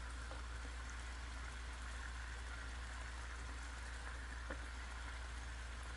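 Steady low hiss of room noise with a constant low hum, and one faint click about four and a half seconds in.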